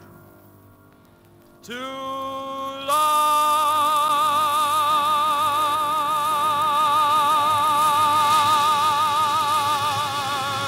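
A singer with orchestra holds the ballad's long final note with strong vibrato. It builds from a quiet pause: a first note about two seconds in, then the loud held top note from about three seconds on. The sound comes from an old radio transcription-disc recording.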